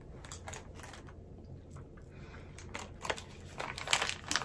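Scattered quiet crackles and clicks from a sour chewy candy being handled and eaten, growing denser about three to four seconds in.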